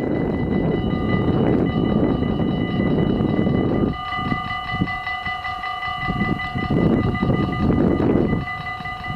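Dutch level-crossing warning bells ringing rapidly and continuously while the half-barriers lower, the signal that a train is approaching. Under them runs a loud, gusty low rumble that drops away about four seconds in and again near the end.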